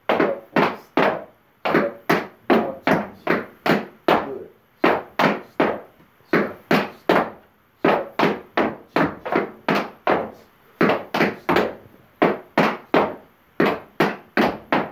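Tap shoes of two dancers striking a portable tap board together, a run of sharp metal-on-wood taps at about three to four a second. The taps come in short phrases of steps and heel drops.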